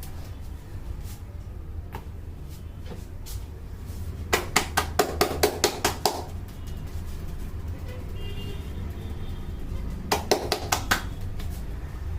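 A neck's joints cracking in a quick run of about eight sharp pops about four seconds in, then about five more near the end, over background music.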